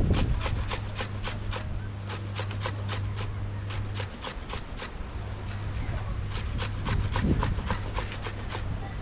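Quick rhythmic scraping or rasping strokes by hand, several a second, over a steady low hum that drops out for about a second midway.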